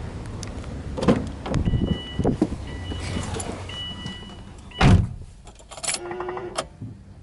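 Car door handling on a Subaru Impreza WRX STi with the engine off: a two-note warning chime sounds in three broken stretches, then the driver's door shuts with one loud thump about five seconds in. A short buzzing rattle follows, and a faint low hum is left at the end.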